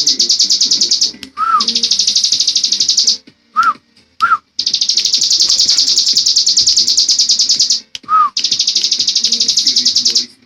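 Ciblek gunung, a prinia, singing its 'ngebren' song: four long, very rapid buzzing trills, each lasting one to three seconds, with a few short, lower arched chirps in the gaps between them.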